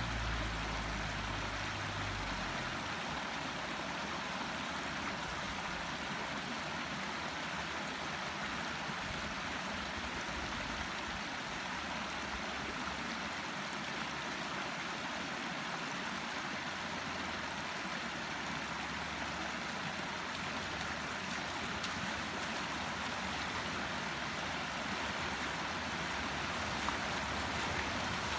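Water rushing steadily over a low stone weir at a shallow ford, an even wash of noise with no break. A low rumble is heard briefly at the start.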